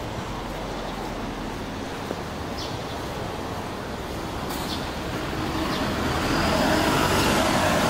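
City bus approaching and turning close past, its engine and drivetrain whine growing louder over the last few seconds. A few short high chirps are heard now and then.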